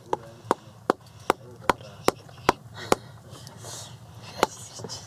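Small hatchet chopping kindling wood: eight sharp knocks in an even run, about two and a half a second, then a pause and one more blow near the end.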